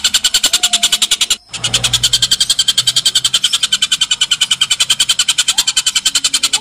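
Oriental dollarbird (tengkek buto) giving a long, harsh chattering call of rapid pulses, about ten a second, with a brief break about a second and a half in.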